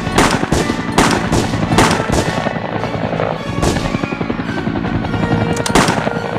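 Battle gunfire sound effects, irregular shots and bursts, over background music.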